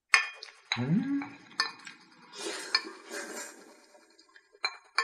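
Spoon clinking and scraping against a ceramic plate as the last leftovers are scooped and slurped up, in several sharp clicks with a stretch of slurping in the middle. A brief rising hum from the eater about a second in.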